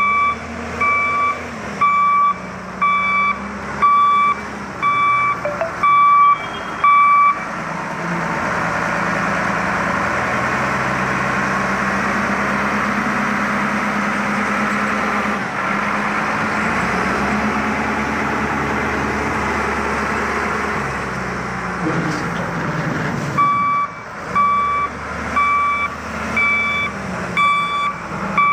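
Wheel loader's reversing alarm beeping about once a second over its diesel engine. The beeping stops after about seven seconds while the engine keeps running in a louder, noisier stretch, then starts again about five seconds before the end.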